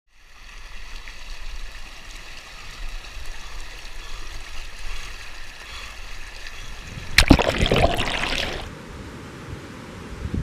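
River water flowing steadily. About seven seconds in there is a sharp knock, followed by a loud rushing burst lasting a second or two.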